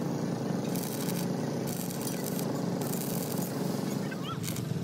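Stick (arc) welding on a steel truck chassis frame: several short bursts of crackling arc sizzle over a steady low hum.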